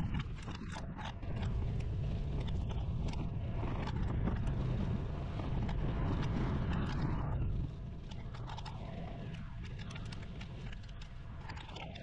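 Steady wind rumble on the microphone of a camera on a moving bicycle, easing a little about two-thirds of the way through, with scattered small clicks.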